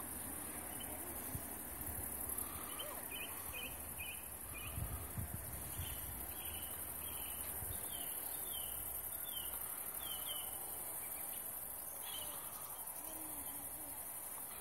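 Crickets and other insects at dusk, a steady high-pitched trill, with a bird giving a run of short falling chirps from a few seconds in to about ten seconds. A few low thumps come about five seconds in.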